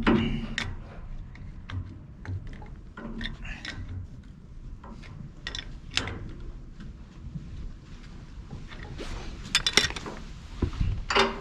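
Scattered clicks and metallic knocks of a spanner working on a valve fitting, with a quick run of sharp clicks near the end.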